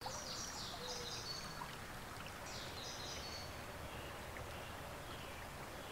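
Creek water running steadily, with a songbird singing two short phrases of high notes, one at the start and one about two and a half seconds in.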